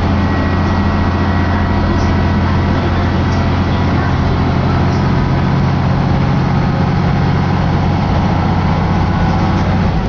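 Diesel railcar running under power, a steady low engine drone heard from inside the carriage along with running noise on the rails. The low drone drops away right at the end.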